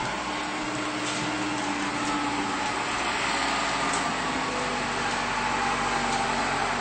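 Backhoe engine running steadily in the background, an even mechanical drone with a faint steady hum.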